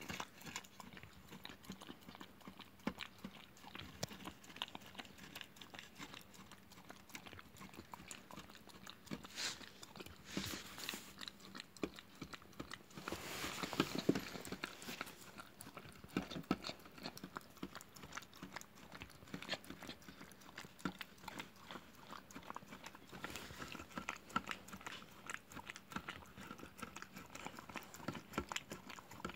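A dog licking and lapping thick viili (Finnish fermented milk) out of a plastic tub: a rapid, continuous run of wet licks and tongue clicks. The sound gets louder for a moment about halfway through, as the tub is pushed about on the floor.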